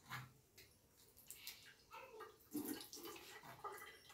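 Mostly near silence, broken by faint small knocks and drips at a bathroom washbasin; near the end the basin tap is opened to a thin stream of water.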